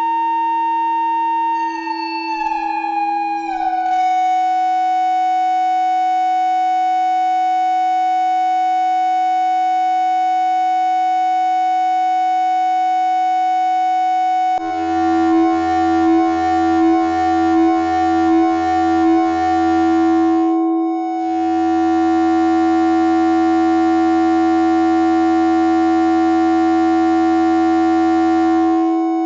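Electronic synthesizer music made of steady, pure sine-like tones. A few seconds in, the tones slide down in steps to a held drone. About halfway in, a low bass layer joins, pulsing in a slow beat, then breaks off briefly before holding steady under the drone.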